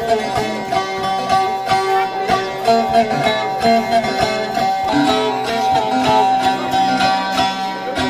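Bağlama (saz) playing an instrumental Turkish folk dance tune: quick plucked notes over a steady droning pitch.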